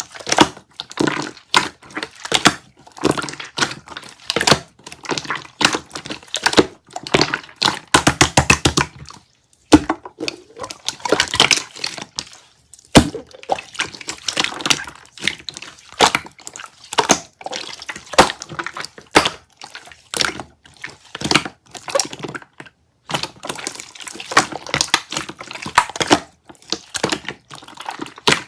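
Slime being squeezed and pressed by hand, making a dense, irregular run of wet pops and crackles, with a quick burst of rapid clicks about eight seconds in.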